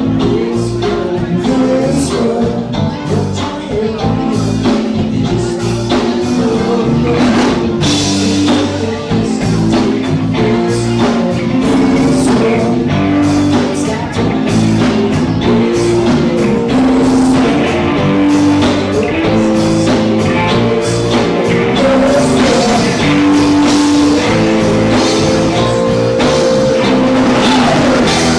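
A live rock band playing loudly and without a break: electric guitars, bass guitar and a drum kit.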